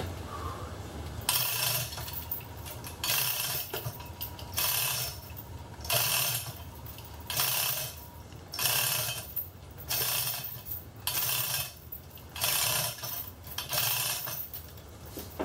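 Manual chain hoist being hand-pulled to lift an engine: the chain rattles and clinks through the hoist in about ten strokes, one every second and a half or so.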